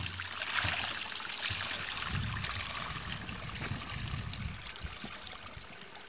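Water pouring out of an open hatch in a washing machine tipped on its side, splashing onto rock; the flow is strongest at first and gradually thins out.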